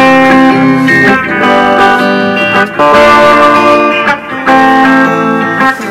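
Electric guitar played through an amplifier: a run of ringing chords that change about once a second, with a couple of brief breaks between phrases.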